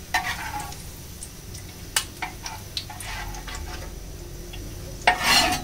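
Metal spatula clicking and scraping against a frying pan as fried shallots are stirred and lifted out onto a plate: scattered light clicks, then one louder, longer scrape near the end.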